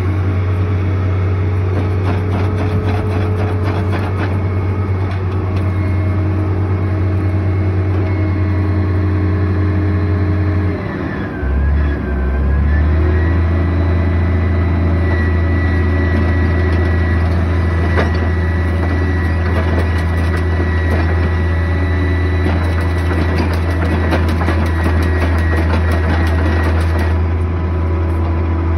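Komatsu GD555 motor grader's diesel engine running steadily close by, with a brief dip in the engine note about eleven seconds in before it settles back to a steady run.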